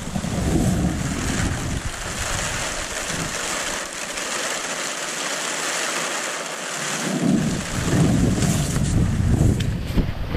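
Steady rain hissing, with wind gusting on the microphone in low rumbles that ease off for a few seconds in the middle and come back stronger.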